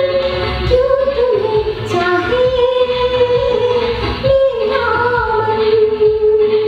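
A woman singing a Hindi film song into a handheld microphone, holding long notes, over recorded backing music.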